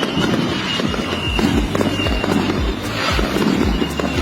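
Dense crackling and popping over background music with a steady bass beat.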